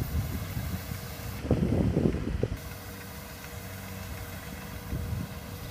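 Combine harvester's diesel engine running steadily with a low rumble. About a second and a half in there is a louder, rough low rumble lasting about a second.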